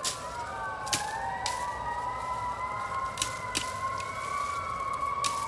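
A distant siren-like wail of several overlapping tones gliding slowly up and down. Sharp snaps come about five times, with twigs being broken off a bamboo stalk by hand.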